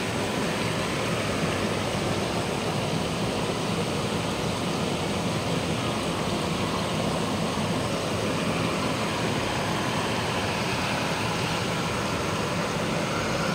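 Hot spring geyser jets spouting steam and hot water from the rocks beside a stream, a steady rushing noise that does not change.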